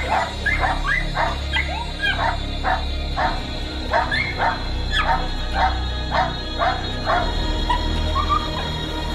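Young Australian Kelpie barking in a fast run of high-pitched, yelping barks, about three a second, the excited barking of a puppy being worked up by a helper in protection training; the barks thin out to a few softer ones near the end. Background music runs underneath.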